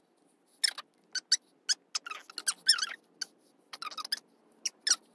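Small plastic light pen squeaking as its tip is pressed and dragged across glow-in-the-dark paper. The squeaks come in short, irregular bursts that waver in pitch as the drawing strokes go.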